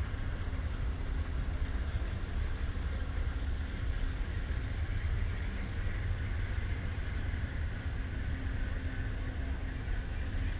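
Amtrak Silver Star passenger train just released from its air brakes, starting to roll slowly out of the station: a steady low rumble, with a faint steady electric buzz from the station lights over it.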